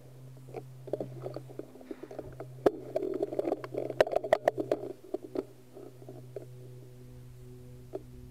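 Clicks and knocks of a shotgun being handled, heard through the gun-mounted camera's microphone over a steady low hum. The clicks come thickest in the middle and thin out over the last few seconds.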